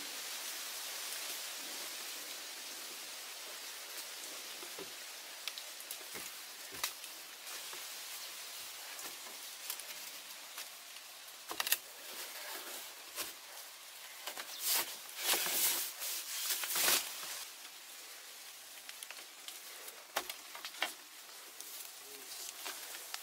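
Scattered knocks and creaks of bamboo poles under a person moving about on a lashed bamboo floor, clustered near the middle, over a steady high outdoor hiss.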